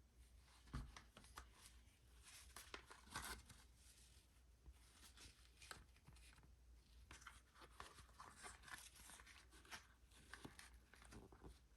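Faint, irregular rustling and light clicks of packaging being handled during an unboxing, with a low steady hum underneath.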